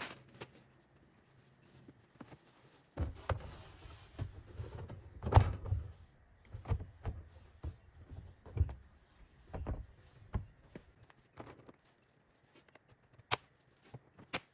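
Irregular knocks and thunks of the Nestera coop's plastic roof panels being handled, lifted and set down, with a few sharp clicks near the end.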